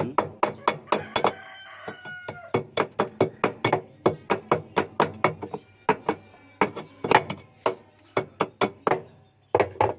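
Quick metal-on-metal scraping and tapping, about three or four sharp strikes a second, some with a brief metallic ring: a tool cleaning caked dirt from around the drum's shaft nut inside a washing machine. The strikes thin out near the end.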